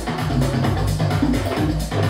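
Upbeat electronic dance workout music with a steady kick-drum beat, about two beats a second.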